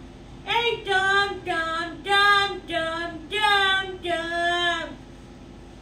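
A voice sings or howls a run of about seven short held notes, each about half a second long. The notes step up and down in pitch like a simple tune, with brief gaps between them, and stop near the end.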